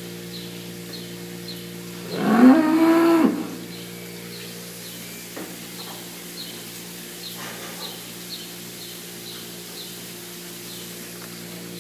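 A dairy cow moos once, about two seconds in: a loud call of just over a second that rises in pitch and then holds. Under it runs the steady hum of the milking equipment, with faint regular ticking about twice a second.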